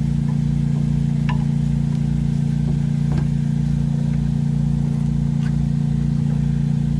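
A steady machine hum with a low throb pulsing about twice a second, over which a few light clicks sound, about one, three and five seconds in.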